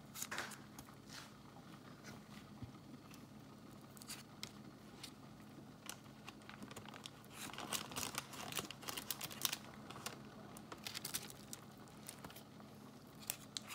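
Faint crinkling of a paper butter wrapper and foil, with light scraping and clicking of a knife as soft butter is scraped off and dotted onto raw pork chops. The rustles and clicks are sparse at first and come thicker in the second half.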